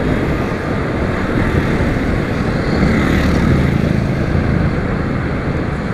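Motorcycle engine running steadily at cruising speed, mixed with heavy wind rush over the microphone.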